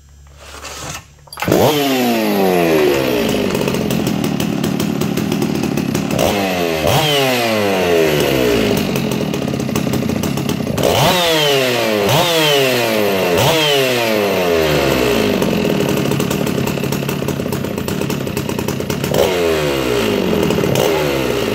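Modified Stihl MS 660 two-stroke chainsaw with a cut-open buckshot muffler, pull-started and catching about a second and a half in, then run hard at high revs. Several times the throttle is let off and opened again, the pitch dropping sharply and climbing back.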